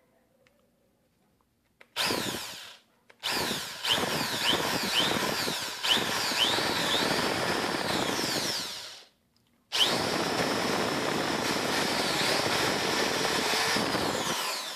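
Electric drill with a step drill bit boring through a clamped metal backing plate, with squeals as the bit cuts the metal. It runs in three bursts: a short one about two seconds in, then two long runs split by a brief pause, stopping just before the end.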